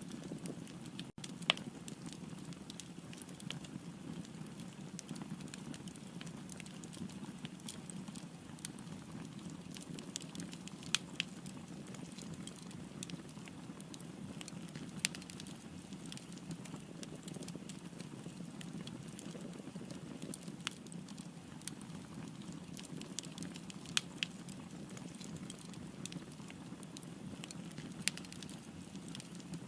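Fire crackling: a steady low rush of burning with frequent small irregular pops and a handful of louder, sharper snaps.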